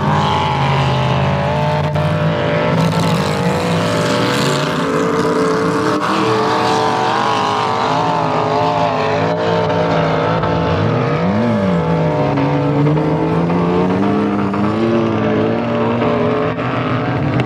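Off-road 4x4 engine revving hard under load while climbing a sand dune, the revs wavering up and down. About eleven seconds in, the revs rise sharply and fall back.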